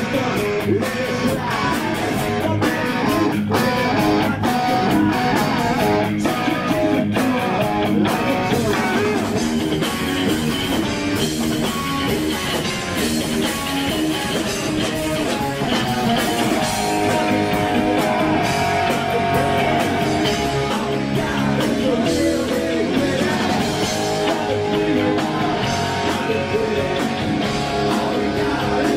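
Rock band playing live: electric guitar over a drum kit, with sharp drum hits through the first several seconds and guitar lines holding longer notes later.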